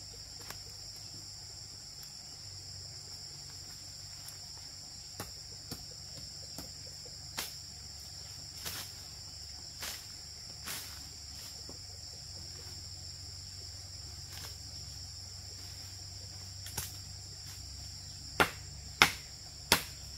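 Steady, high-pitched chorus of insects, with scattered sharp knocks and taps. A few louder knocks come near the end.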